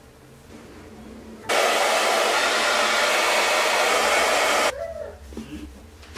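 Handheld hair dryer switched on about a second and a half in, blowing steadily for about three seconds, then switched off abruptly.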